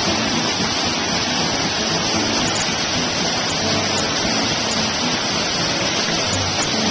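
Waterfall with its water falling and rushing as one loud, steady noise.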